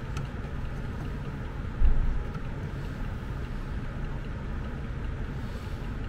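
Steady low rumble of background noise, with one dull thump about two seconds in.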